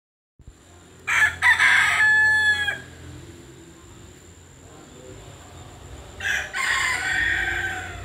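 A rooster crowing twice: one crow about a second in and a second after about six seconds, each lasting about a second and a half.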